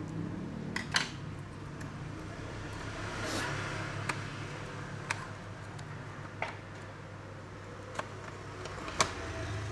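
Scattered sharp clicks and taps of tools and small plastic parts being handled on an opened laptop, about six in all, over a steady low hum, with a short hiss about three seconds in.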